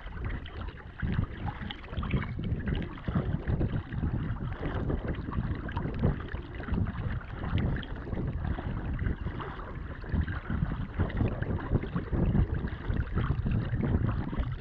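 Kayak paddle strokes splashing in the sea and water washing along the hull, under a gusty rumble of wind buffeting the microphone.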